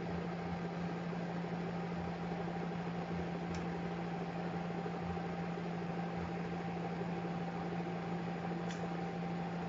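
Steady hum and whir of an electric fan running, with two faint ticks, about three and a half seconds in and near the end.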